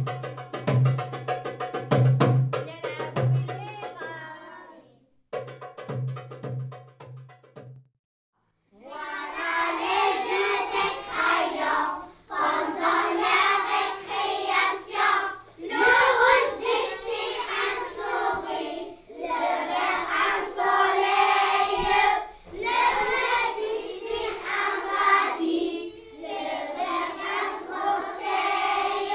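Music with a steady pulsing drum beat for the first several seconds, breaking off into a moment of silence. Then a group of children sing together in chorus, phrase after phrase, with short breaks between lines.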